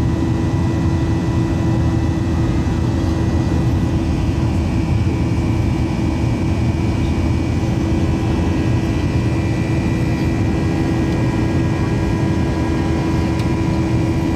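Boeing 737-800 jet airliner cabin noise: the CFM56 engines and airflow make a loud, steady drone with a constant low hum running through it.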